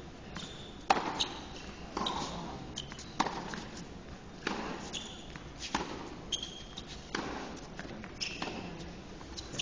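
Tennis rally: a tennis ball struck by rackets and bouncing on an indoor court, sharp knocks about once a second, with short high squeaks of players' shoes on the court between them.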